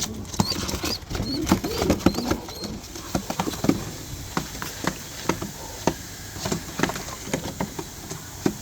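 Pigeons shuffling inside a carrier: irregular clicks and scratches of claws on the floor, with a few low coos in the first couple of seconds.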